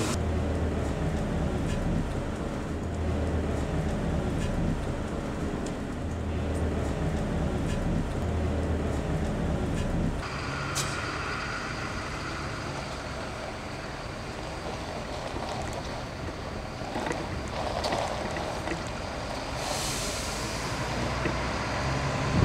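Mercedes-Benz Citaro city bus driving, heard from inside: a steady engine and road rumble that changes character abruptly about ten seconds in, with a short hiss near the end.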